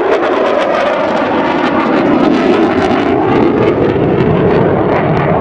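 Eurofighter Typhoon's twin EJ200 turbofan engines roaring at high power as the jet passes and climbs: a loud, steady jet roar with a crackling edge.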